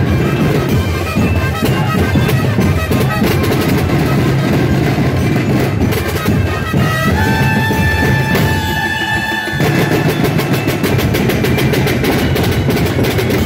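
Drum-heavy percussion music playing steadily. A single held note sounds over the drums for a few seconds in the middle.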